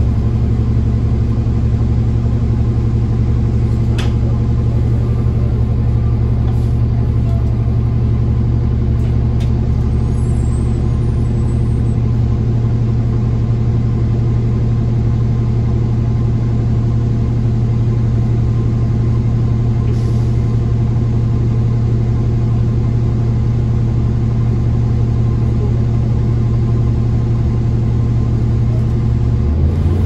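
Orion city bus's engine and drivetrain droning steadily at a constant speed, heard from inside the cabin, rising in pitch at the very end.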